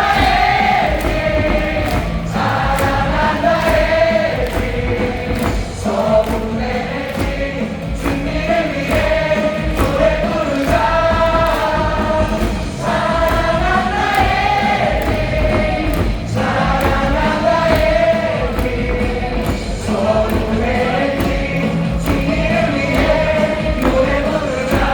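A baseball stadium crowd singing a cheer song in unison over amplified music, with a regular beat running underneath.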